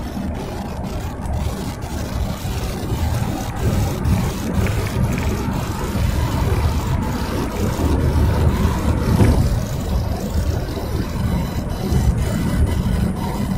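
Road and engine noise heard from inside a moving car: a steady low rumble.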